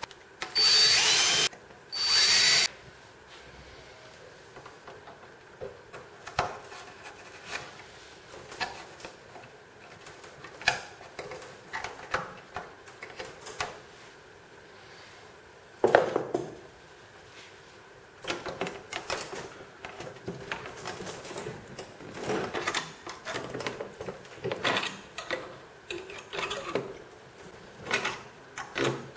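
Two loud bursts of noise, each under a second long, in the first few seconds. Then scattered clicks, taps and rubbing as copper stitching wires are worked with pliers against the thin plywood panels of a kayak hull, busier toward the end.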